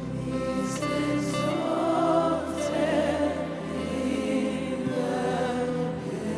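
Gospel worship music: held chords with voices singing over them.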